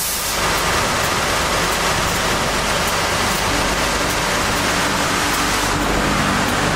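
Wood-core profile sanding machine running steadily with a loud, even rushing noise that grows fuller about a third of a second in, as the sanding takes hold of the core.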